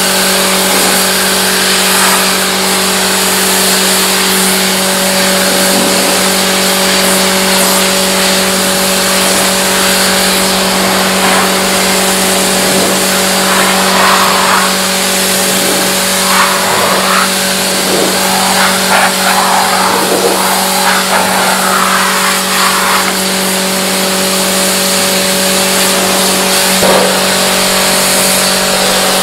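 A machine running with a steady hum under a loud hiss, with a run of short squeaks about halfway through.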